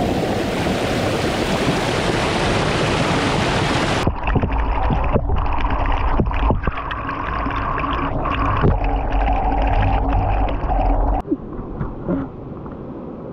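Waterfall's rushing water, an even loud hiss that cuts off abruptly about four seconds in. It gives way to a steady low hum with scattered knocks, which drops to a quieter, sparser background near the end.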